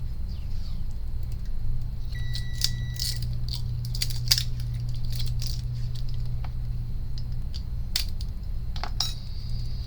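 Small crinkles and clicks of a protective covering being pressed down over an SSD controller chip to shield it from heat, over a steady low hum. A short beep sounds about two seconds in.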